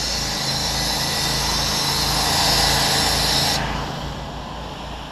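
Pressure-washing rig's engine running steadily, with a loud hiss of water spray over it that cuts off suddenly about three and a half seconds in.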